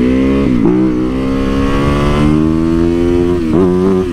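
Motorcycle engine accelerating, its revs climbing steadily and dropping briefly at upshifts about half a second in and again near the end.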